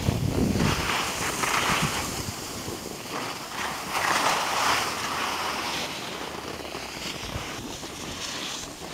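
Skis sliding and scraping over packed snow, a rushing hiss that swells twice, about a second in and again around four seconds, with wind buffeting the microphone.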